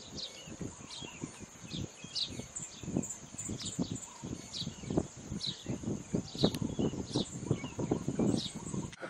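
Outdoor ambience of a bird calling in short descending chirps every second or so over a steady high whine, with irregular low thumps throughout; the sound cuts off abruptly near the end.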